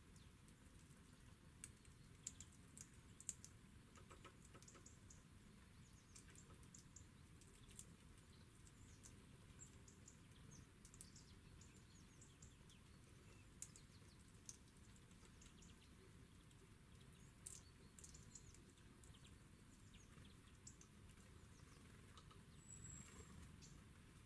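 Near silence broken by faint, sharp clicks, a quick cluster a couple of seconds in and a few single ones later: birds pecking and cracking seed on a wooden bird table. A brief high bird note near the end.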